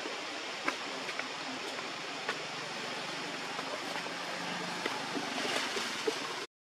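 Steady outdoor background noise with a few faint sharp clicks scattered through it and a faint low hum in the middle. The sound cuts out abruptly shortly before the end.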